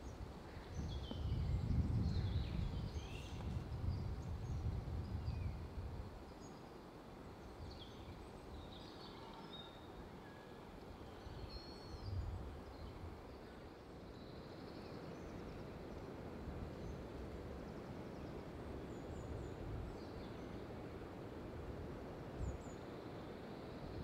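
Woodland birdsong: several small songbirds chirping and trilling at intervals over a faint steady background hiss. A low rumble sits under the first six seconds, with a brief low bump about halfway through.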